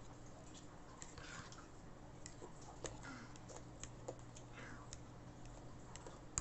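Metal spoon stirring a thick avocado-and-cream mixture into crushed graham crumbs in a bowl, giving faint, irregular clicks and taps against the bowl over a low steady hum.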